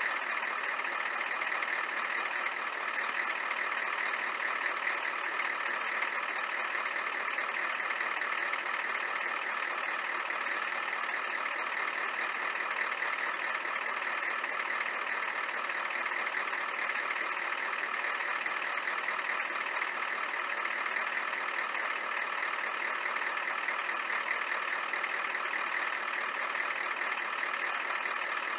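1993 Ford F-350's 7.3-litre V8 IDI diesel engine idling steadily.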